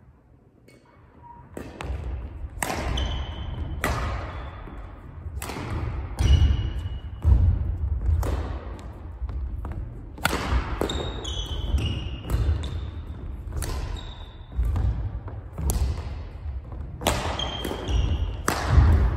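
Badminton singles rally: sharp racket strikes on the shuttlecock come about once a second after a short quiet start, echoing in the gym. Between them are footfalls and short shoe squeaks on the wooden court floor.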